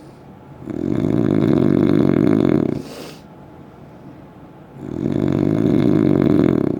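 Heavy snoring, loud and rough: two long snores about four seconds apart, each lasting about two seconds, with a short hiss of breath between them.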